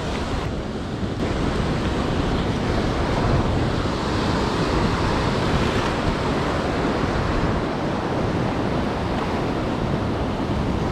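Ocean surf washing and churning around coastal rocks, a steady rush of breaking water.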